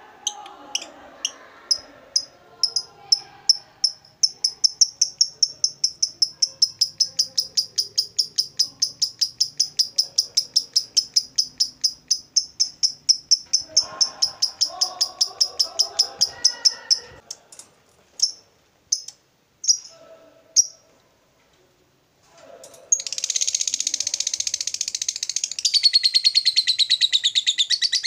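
Fischer's lovebird in the long 'ngekek' trill: a rapid run of high, sharp chirps at about five a second, held for many seconds. Near the end, after a few single chirps and a short pause, it breaks into a denser, louder chattering.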